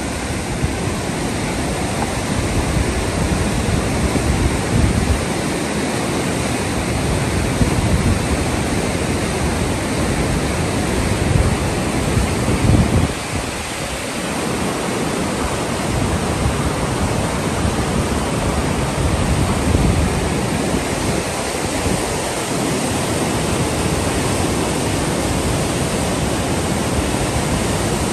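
A fast, silt-laden glacial meltwater river rushing through turbulent rapids, a steady loud roar, with wind buffeting the microphone.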